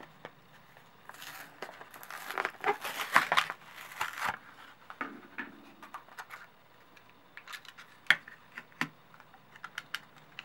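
Plastic blister packaging and its cardboard backing being pulled open and crinkled by hand, a dense crackling stretch a second or so in, then scattered light clicks and taps as the clear plastic tray is handled.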